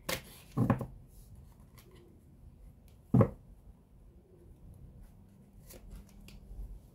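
Tarot cards being handled: soft rustles and taps of the deck, a sharper knock about three seconds in, and faint clicks near the end as a card is laid down on the tablecloth.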